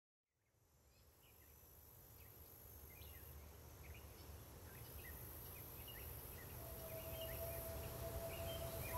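Open-country ambience fading in from silence: many small birds chirping over a low rumble, and a single steady tone coming in near the end.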